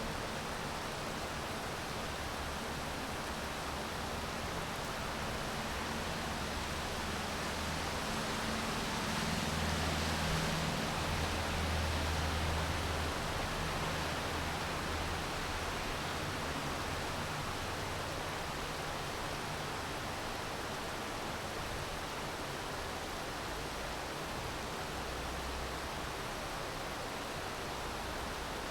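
Steady rain falling, an even hiss. A low rumble swells about nine seconds in and fades again a few seconds later.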